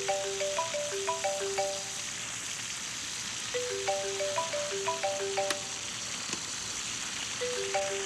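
Mobile phone ringing: a short ringtone melody of quick notes that repeats about every four seconds, over the steady hiss of a running shower.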